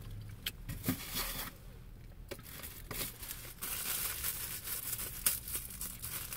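Takeout food packaging being handled: irregular crinkling and rustling with small clicks and scrapes.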